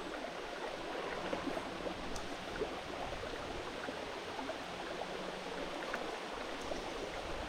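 Steady rain falling, with the creek running beneath it: an even hiss speckled with tiny drop ticks.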